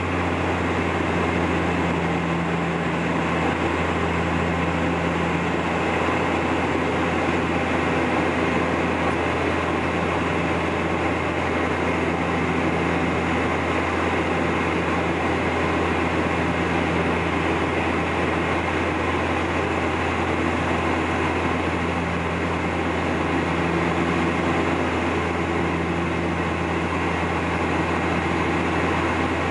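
Cabin drone of a Bombardier Dash 8 Q400 turboprop, heard beside the propeller: a steady deep propeller hum with a higher tone that swells and fades, over a constant rush of air and engine noise.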